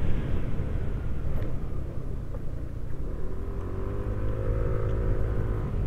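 Motor scooter riding along, with a steady low road and wind rumble. About halfway through, an engine note comes in and slowly rises in pitch as the machine gathers speed.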